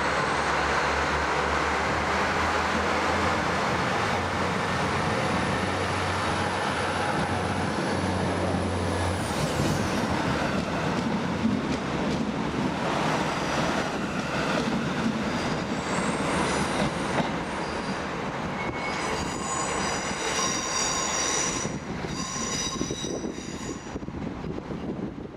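Northern Ireland Railways Class 3000 diesel multiple units, first idling with a steady low engine hum, then, after about nine seconds, a unit running past close by and pulling away. High-pitched wheel squeals come in during the second half.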